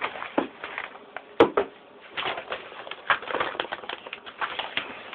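Papers being shuffled and handled: irregular rustles and taps, with one sharp click about a second and a half in.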